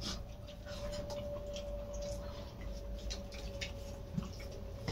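Quiet eating sounds: faint scattered clicks of fingers working biryani on metal plates, and chewing, over a steady faint hum.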